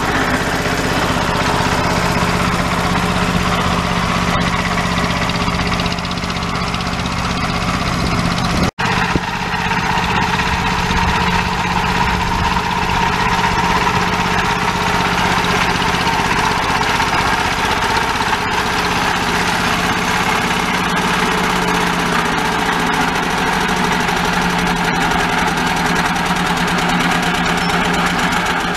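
1964 Deutz D15 tractor's single-cylinder air-cooled diesel engine running steadily under load while it pulls a plough through the soil, with a momentary break about nine seconds in.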